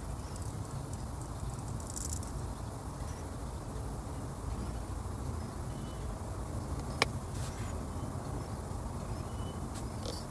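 Faint, steady low rumble of workshop background noise, with a single sharp click about seven seconds in.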